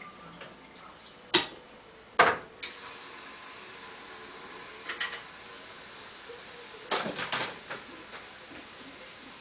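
Dishes and kitchen utensils knocking and clattering: two sharp knocks about one and two seconds in, lighter clinks around five seconds, and a quick run of clatter about seven seconds in.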